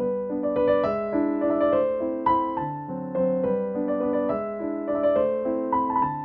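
Background music: a piano or electric piano playing a gentle melody over chords, notes struck one after another and fading.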